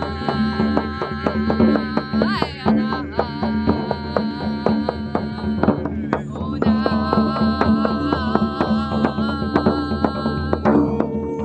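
Live instrumental music: quick percussive strikes over a steady drone, with pitched tones that waver and slide above it.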